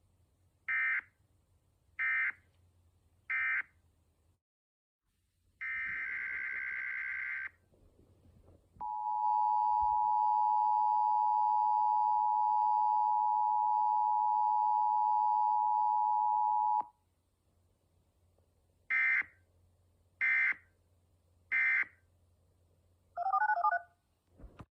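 Emergency Alert System audio tones. Three short screeching SAME data bursts (the end-of-message code) are followed by a longer data burst, then the steady two-tone EAS attention signal held for about eight seconds. Three more short data bursts follow, and a brief warbling tone comes near the end.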